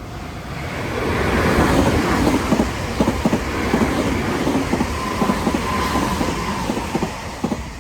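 Nankai electric train passing, its wheels clacking over rail joints in a quick, uneven run of knocks. A thin whine comes in about five seconds in and fades before the train dies away.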